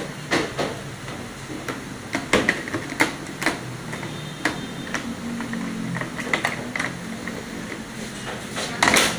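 Irregular clicks and knocks of hand tools and parts being handled on a top-load washing machine under repair, with a faint low hum partway through.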